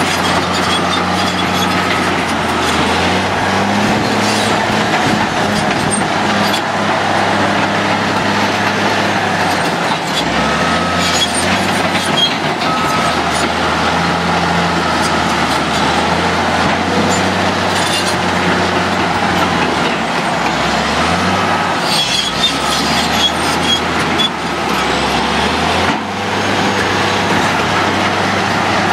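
Caterpillar D8T bulldozer working up close: its C15 diesel engine runs steadily under load, its note shifting a few times, over the clatter of its steel tracks and rock being pushed by the blade.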